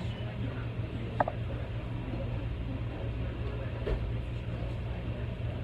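Room tone with a steady low hum and a faint haze of background noise, broken by a brief faint blip about a second in and a small tick near the end; no music is playing.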